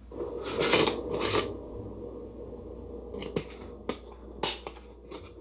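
Plastic dog poop bag being handled, crinkling and rustling, with a few sharp clicks, the loudest a little after four seconds, over a low steady hum.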